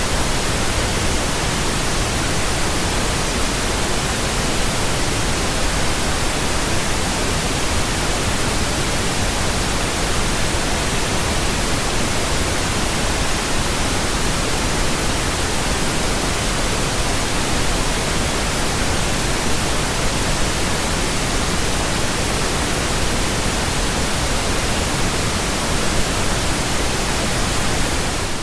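Pink noise: a steady, even hiss spread across all pitches, with no change from start to finish.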